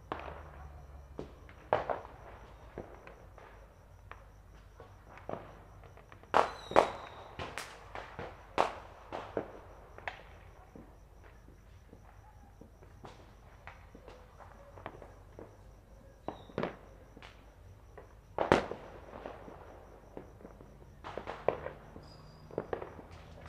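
Firecrackers and fireworks going off all around, scattered sharp bangs and cracks at uneven intervals, some faint and some close. The loudest reports come in quick clusters about six and a half seconds in and again near eighteen and a half seconds.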